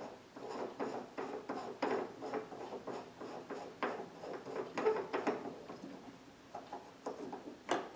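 The drain cover on the back of an AeonAir dehumidifier is being unscrewed counterclockwise by hand: a run of small, irregular clicks and rattles, with a sharper click near the middle and another just before the end.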